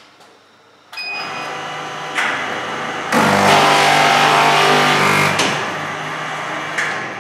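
Automatic glue (perfect) binding machine running a cycle. Its clamp carriage starts moving about a second in. From about three to five and a half seconds the book block's spine is milled and roughened as it passes the cutter, a loud grinding noise, then the machine runs on steadily and more quietly.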